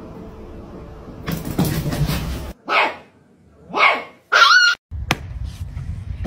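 A dog barking three times, about a second apart, the third bark the loudest and highest.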